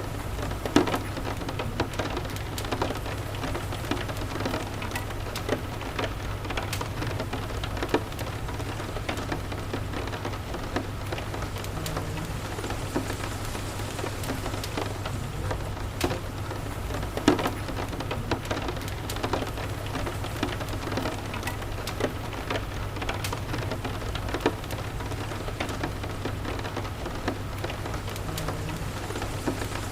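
Steady rain falling, with scattered sharp crackles and pops from a wood fire in a fireplace, and a low steady rumble underneath.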